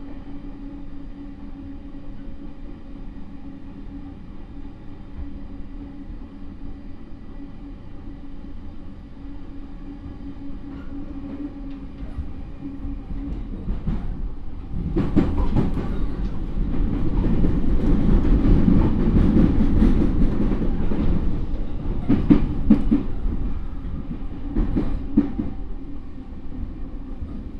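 Running sound inside a JR E231 series commuter train's motor car: a steady hum at first, then about fifteen seconds in a much louder rumble of wheels on rail with repeated clacks over rail joints, easing off near the end.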